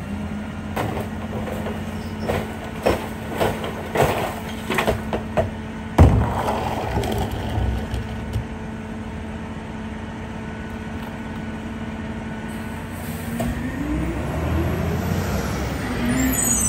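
Rear-loader garbage truck's diesel engine held at a steady raised speed while the packer compacts a Christmas tree in the hopper, with branches cracking and snapping and one heavy thump about six seconds in. Near the end the engine revs up as the truck pulls away.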